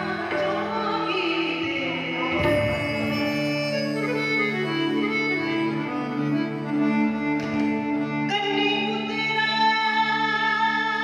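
A woman singing a Sufi song into a microphone over electronic keyboards holding sustained chords. Her voice falls away for a few seconds midway while the keyboards carry on, and new chord notes come in near the end.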